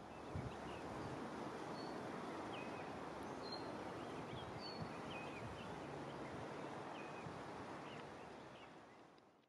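Outdoor ambience: a faint steady hiss with small birds chirping here and there, short separate chirps throughout, fading out near the end.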